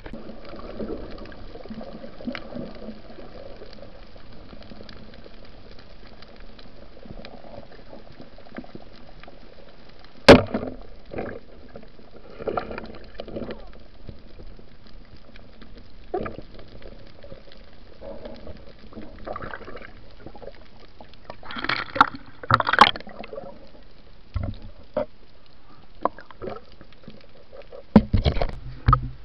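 Muffled water noise as heard underwater: a steady low wash with scattered sharp clicks and knocks, one loud knock about ten seconds in, and bursts of louder splashy sounds a little over twenty seconds in and again near the end.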